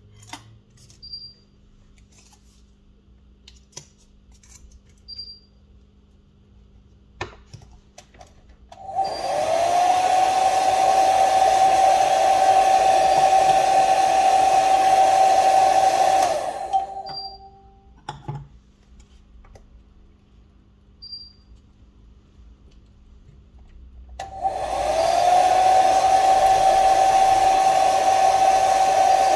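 Hot-air blower switched on twice: each time its fan spins up to a steady high whine over a rush of air. The first run lasts about eight seconds and the second starts near the end. Light clicks of small tools fall in the quiet between runs.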